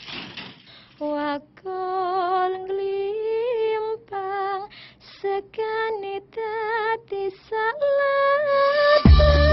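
A single high voice singing a slow melody, unaccompanied, on long held notes with vibrato and short breaks between phrases. Near the end, music with a heavy bass beat comes in.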